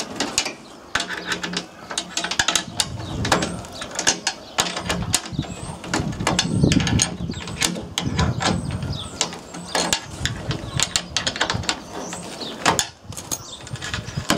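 A 17 mm spanner loosening bolts on a stainless steel pond frame: a run of irregular metallic clicks and scrapes from the spanner on the bolt heads and steel panel.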